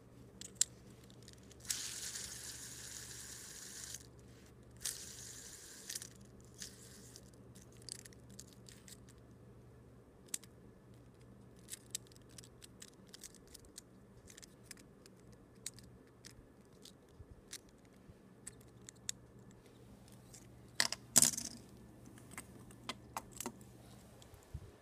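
Fingers handling a plastic LED fidget spinner close to the microphone: scattered small clicks and taps, a few seconds of rough rubbing noise about two seconds in, and a sharp cluster of clicks near the end.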